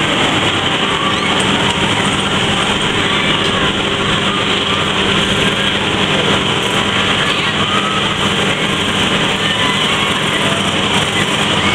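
Steady fairground machinery noise: a constant mechanical hum and rumble from the kiddie boat ride turning and the rides around it, at an even level throughout.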